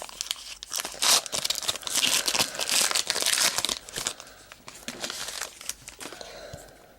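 Trading-card pack wrapper being torn open and crinkled by hand, loudest for the first few seconds. It then settles into softer rustling as the cards are handled.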